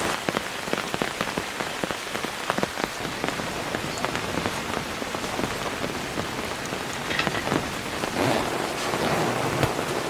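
Heavy rain pouring steadily, a dense patter of close individual drop hits over a constant hiss.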